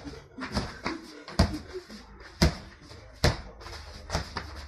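Basketball being dribbled on a hard court: about eight sharp bounces at an uneven pace, the loudest with a dull low thud.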